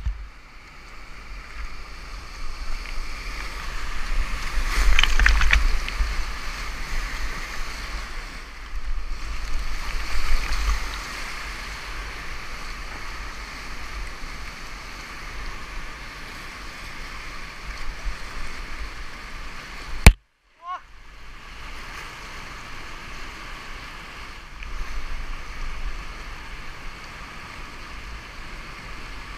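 Whitewater rushing and churning around a kayak running high-water river rapids, with wind buffeting the microphone and swelling louder twice in the first third. About two-thirds of the way through there is one sharp click and a brief dropout.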